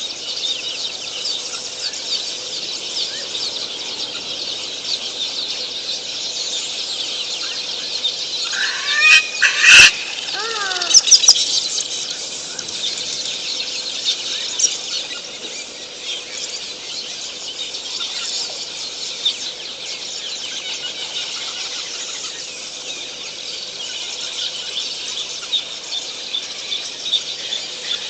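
Bush waterhole ambience: a dense, steady chorus of high bird chirps and calls. About nine seconds in, a louder call of several falling notes rings out, cut by a sharp click, and a few more clicks follow a second later.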